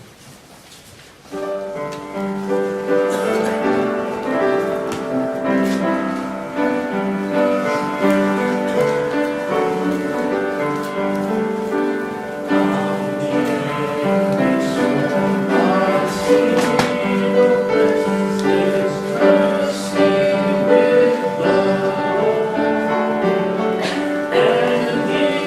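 Church hymn music starts suddenly about a second in and plays steadily: sustained chords with a melody line, the introduction to the invitation hymn.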